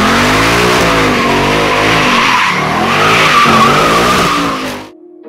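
Ford Mustang doing a burnout: its rear tyres squeal against the asphalt while the engine revs up and down in waves. The sound cuts off suddenly near the end, and soft piano music begins.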